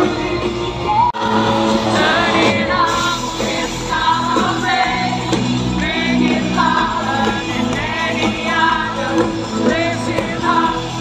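Live Christian worship band playing a rock-style praise song with a lead vocal, heard from among the audience in a large hall. The sound cuts out for an instant about a second in.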